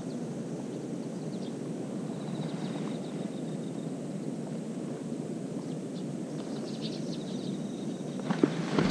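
Steady outdoor background by still water: an even low hiss with no distinct source, a faint thin high note about two to four seconds in, and a few faint high chirps near the end.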